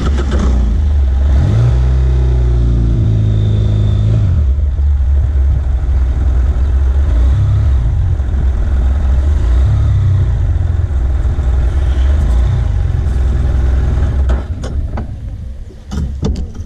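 BMW F800GS parallel-twin engine pulling away, its revs climbing over the first few seconds, then running steadily at low speed. The engine note drops away near the end as the bike slows, with a few sharp clicks just before the end.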